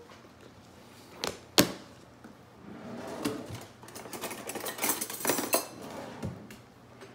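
Metal cake pan knocked twice in quick succession about a second and a half in, then a few seconds of clicking and clattering against the plate under it, as the pan is worked off an upside-down cake.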